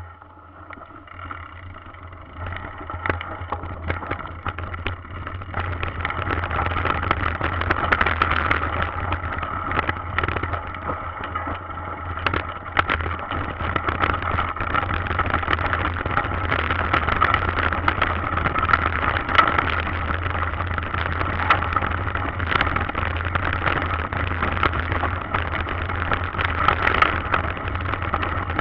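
Mountain bike riding fast down a rough dirt trail, heard from a bike-mounted camera: steady tyre and wind noise with frequent rattles and knocks over bumps. It gets louder about five seconds in as the bike picks up speed.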